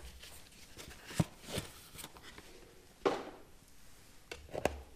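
A DJI Mavic Pro intelligent flight battery being taken out of its packaging and handled: scattered clicks, taps and rustles of the box, the sharpest about a second in and again near three and four and a half seconds.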